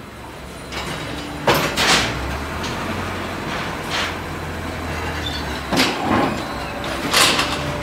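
Hongfa QT4 cement block machine running: a steady low hum with about half a dozen sharp clanks and knocks at uneven intervals as a pallet of fresh blocks is moved out onto the roller conveyor.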